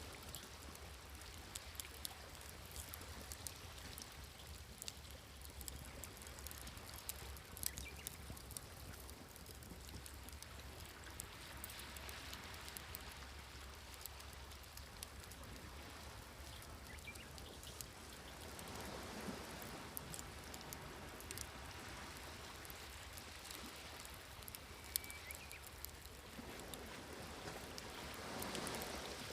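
Wood fire crackling with scattered sharp pops, while small waves wash in and recede, swelling about three times.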